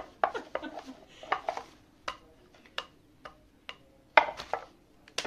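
Irregular clinks and knocks of kitchen utensils being handled during gujiya and roti making, about a dozen separate strikes, the loudest about four seconds in.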